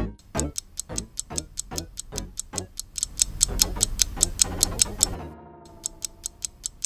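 Countdown-timer ticking sound effect, a quick, even run of clock ticks, over light background music. A held tone joins the ticks near the end.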